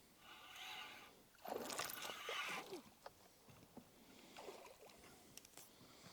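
Water splashing and sloshing briefly about a second and a half in, then a few light knocks.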